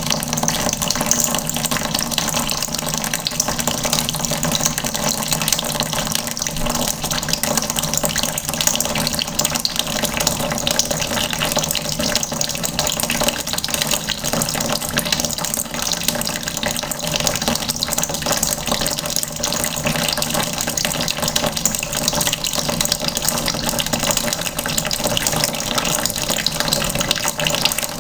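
Water running steadily from a tap into a plastic bucket, a constant splashing rush.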